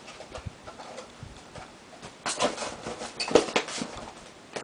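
Hands rummaging through packed parts in a styrofoam box: light scratching and rustling, then a louder run of scraping and clicking about two seconds in that lasts a couple of seconds, and a sharp click at the end.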